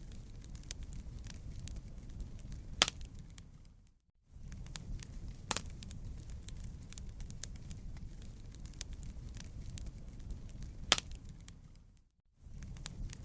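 Wood fire crackling in a fireplace: a steady low rumble of flames with many small snaps and two loud pops. The sound briefly fades to silence and back about four seconds in and again near the end.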